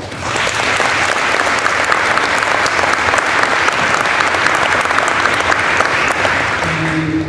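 Audience clapping in applause, a dense patter of many hands that sets in at once and dies away near the end.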